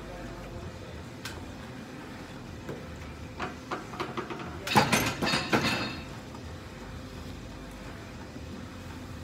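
A heavy truck tire on a steel tire-flip machine being heaved upright, with a few sharp clicks and clanks from the frame. About five seconds in it tips over and lands, setting off a loud clatter of knocks and metallic rattling that lasts about a second.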